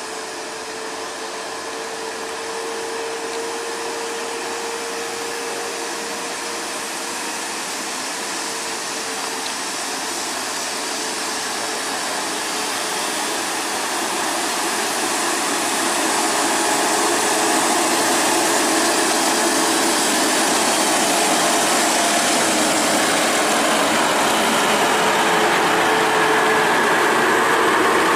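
Diesel engines of large tour coaches, a steady drone with a whining tone, growing steadily louder as the buses draw near.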